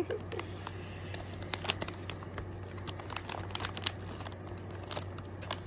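Packaging crinkling and rustling as it is handled, a scatter of short, irregular crackles.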